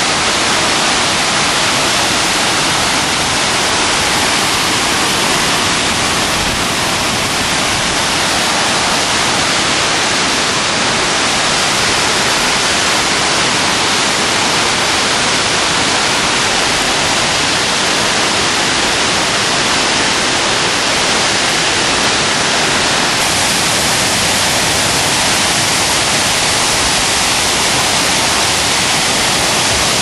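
Waterfall pouring down a steep rock face: a loud, steady rush of falling water splashing onto the rocks.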